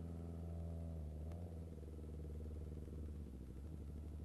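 Kawasaki Ninja ZX-25R's inline-four engine idling steadily, with a short click about a second in.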